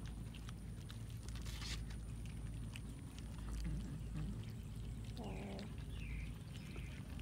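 Several cats eating cooked rice off a wooden plank: many small wet chewing and smacking clicks over a low steady background rumble. A brief low-pitched call sounds about five seconds in.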